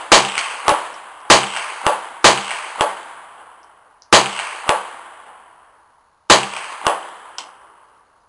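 .22 rifle firing five shots, three about a second apart and then two more after pauses of about two seconds. Each shot is followed about half a second later by a fainter second crack.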